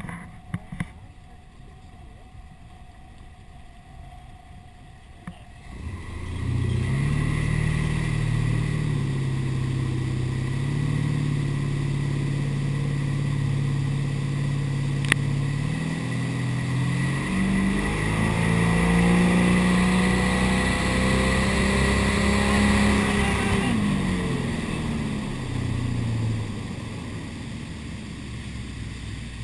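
Ski boat engine ticking over quietly, then opening up about six seconds in and running hard under load with the rush of water and spray. Its pitch climbs higher about two thirds of the way through, then drops as the throttle comes back near the end.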